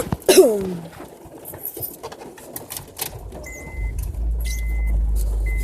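Car interior: keys and handling clicks, then a car's warning chime beeping about once a second over a low, steady rumble that sets in about halfway through.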